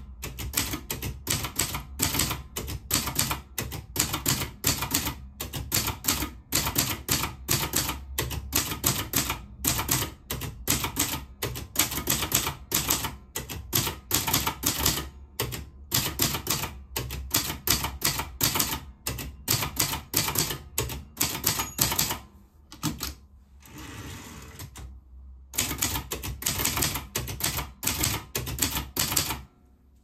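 Silver-Reed Seventy manual portable typewriter being typed on: a rapid run of typebar keystrokes, several clicks a second. The typing breaks off for a few seconds, leaving only a softer, quieter sound, about 22 seconds in, then resumes and stops just before the end.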